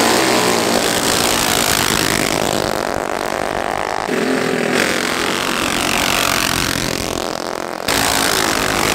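Racing mini bike engines revving and accelerating, rising in pitch as they pull away, with abrupt changes in the sound about four and eight seconds in.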